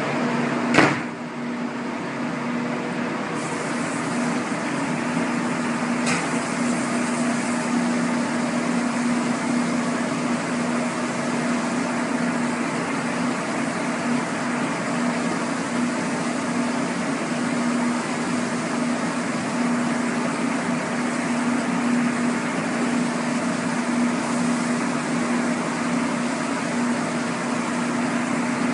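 Spray booth extraction fan running steadily with a constant hum, with a single sharp knock about a second in.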